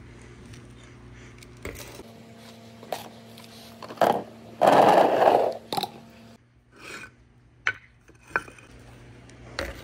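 Bricks being set down and slid on a wooden pegboard marble ramp: scattered knocks and clicks, with one loud scrape of about a second near the middle.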